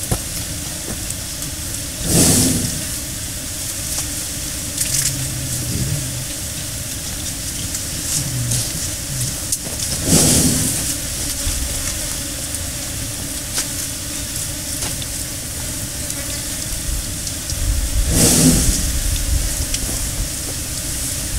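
Injured Sri Lankan elephant lying on its side, breathing: a long, noisy exhalation about every eight seconds, three times, over a steady hiss.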